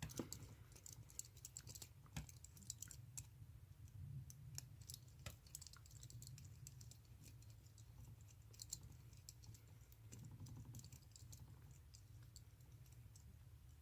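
Faint, scattered small clicks and taps of a screwdriver and small metal parts being handled while the coil screws of a tattoo machine are tightened down.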